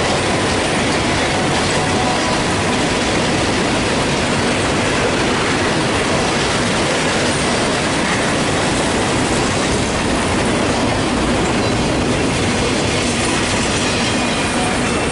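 Wheels of a loaded rail train's flatcars rolling past on the track: a loud, steady rumble of steel wheels on rail, with a few faint high steady tones over it.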